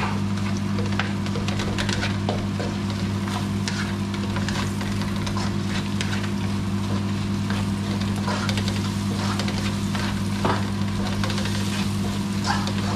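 Sliced onions sizzling in oil in a stainless-steel wok, with a spatula scraping and clicking against the pan as they are stirred. A steady low hum runs underneath.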